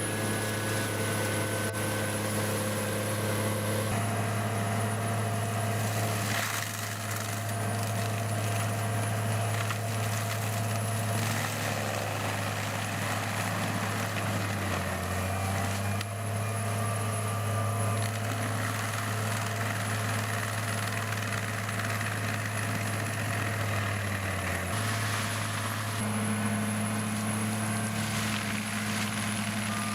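Forestry mulcher running: a steady heavy engine drone with a constant hiss, its tone shifting abruptly a few times.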